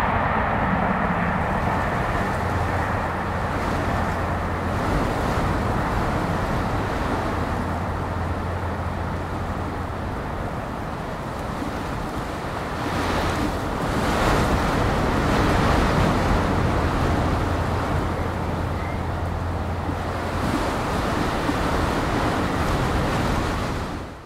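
Wind buffeting the microphone, a steady rushing noise with a low rumble and a few stronger gusts, over the faint sound of a steam-hauled passenger train running away into the distance. The sound fades out just before the end.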